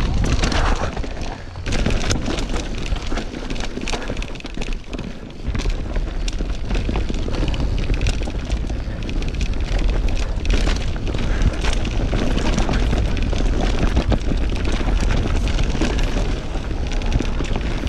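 Downhill mountain bike rattling down a rooty dirt trail: tyres crunching over dirt, with frequent sharp knocks and clatter from the bike over roots and stones, and wind buffeting the action-camera microphone. The low wind rumble gets heavier from about five seconds in as the speed picks up.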